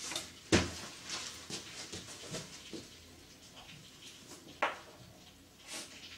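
Scattered knocks and clicks of chalk being handled and tapped onto a blackboard as writing begins, the loudest knock about half a second in and another sharp tap just before five seconds.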